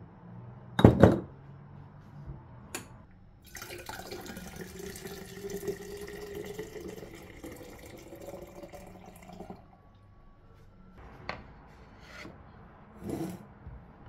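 Water poured into a tall glass carafe of brewed tea for about six seconds, the pitch of the pour rising as the carafe fills, then cutting off. Before it, a loud knock as the wooden lid of a glass jar is set back on. Near the end there are a few light knocks on the counter.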